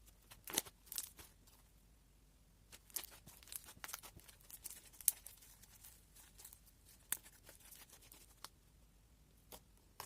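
Slime being worked by hand: an irregular run of short sticky crackles and clicks, a few louder pops among them.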